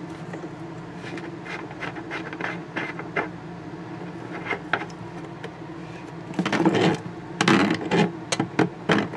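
Small metal clicks and scrapes as a faucet aerator is unscrewed and a threaded garden-hose adapter is fitted onto the sink spout and tightened with multitool pliers. The clicking is thickest in two clusters around two-thirds of the way through. A steady low hum runs underneath.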